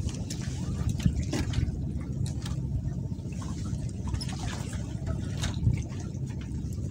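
Water sloshing and lapping over a steady low rumble, with scattered light clicks and splashes throughout.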